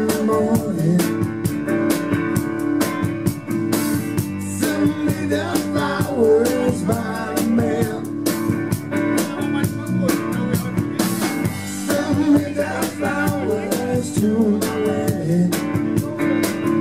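Live rock band playing an instrumental passage: electric guitar with bending lead lines over electric bass and drums.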